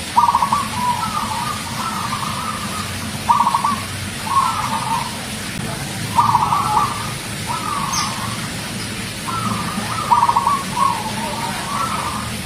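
Zebra dove (perkutut) singing: short rolling, trilled coos at a steady pitch, repeated in phrases every second or two.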